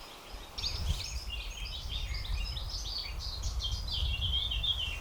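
A small songbird singing a long, fast run of chirping notes that drifts slowly down in pitch, over a steady low rumble.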